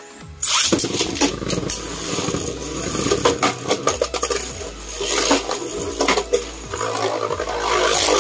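Two Beyblade Burst tops, Prominence Valkyrie and an opponent, launched into a plastic stadium about half a second in. They then spin and grind across the stadium floor with many sharp clacks as they collide.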